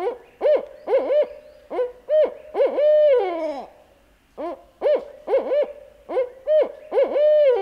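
Barred owl hooting its 'who cooks for you, who cooks for you-all' call twice: each phrase is about eight hoots and ends in a long drawn-out note that falls away.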